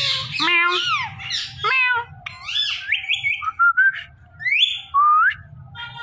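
Indian ringneck parakeet squawking and chattering, then giving a string of short calls and rising whistles.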